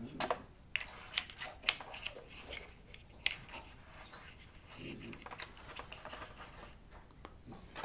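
Sport sunglasses being fitted to a road-cycling helmet by hand: a handful of small, sharp plastic clicks in the first few seconds, then soft handling rustle around the helmet and straps.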